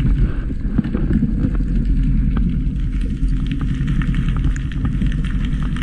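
Muffled, steady low rumble picked up by a camera held underwater, with scattered faint clicks and ticks.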